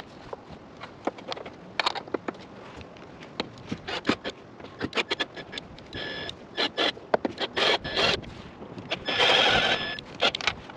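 Hand work fitting a roof-rack crossbar: scattered clicks and knocks of parts and hardware, with two scrapes, the longer and louder one about nine seconds in.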